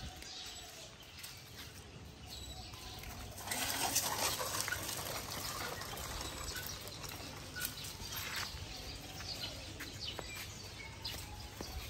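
Outdoor background with a few faint, short bird chirps and a stretch of rustling about three and a half seconds in.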